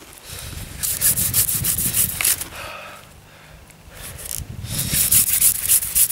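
Hand-drill friction fire: a wooden spindle spun back and forth between the palms, rasping as it drills into a wooden hearth board. It comes in two spells with a short pause between them.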